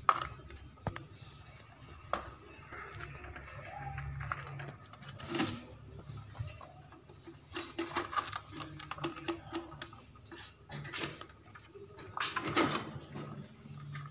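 Scattered clicks, knocks and rustles of rabbits and a cat eating pellets and moving about in a wire cage, with a louder rattle near the end. A steady high-pitched tone runs underneath.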